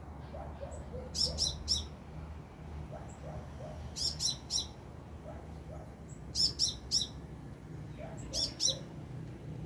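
A sunbird (the bird called 'kolibri' in Indonesia) singing in short phrases of three or four sharp, high chirps, repeated about every two to three seconds.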